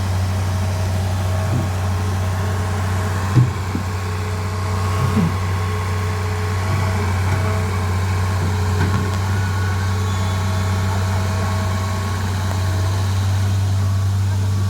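Excavator's diesel engine idling steadily, with a single sharp metal knock about three and a half seconds in and a few fainter knocks later.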